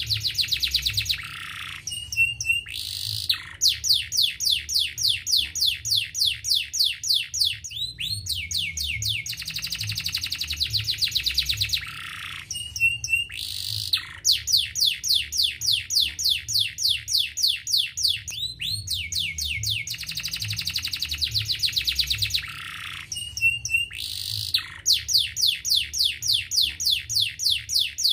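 Domestic canary singing: long, fast trills of quick high downward-sweeping notes, broken by short pauses and a few brief whistled notes. The same run of phrases comes round again about every eleven seconds, over a faint low hum.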